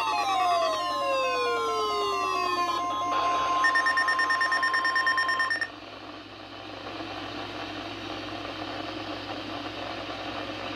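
NOAA Weather Radio 1050 Hz warning alarm tone, a steady single-pitch tone that cuts off about five and a half seconds in. Falling electronic sweeps overlap it for the first few seconds. A quieter steady hiss of the radio broadcast follows.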